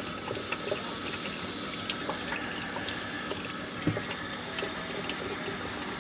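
Kitchen faucet running steadily, a continuous rush of water.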